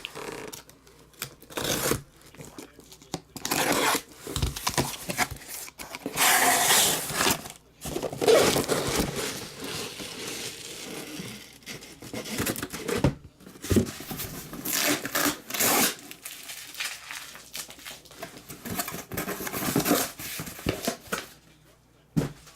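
Plastic wrap and packaging torn and crinkled in irregular bursts as a sealed box of trading cards is opened.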